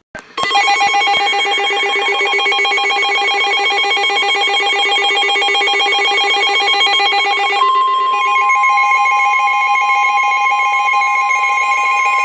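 Emergency Alert System attention signal: a loud, rapidly warbling electronic alarm tone. About seven and a half seconds in it changes, and a steady single-pitched weather-radio alert tone sounds from then on.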